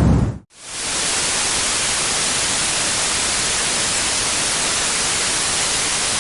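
A brown noise sample, deep and weighted to the low end, fades out about half a second in. After a brief dip, a white noise sample fades in and runs as a steady, even static-like hiss.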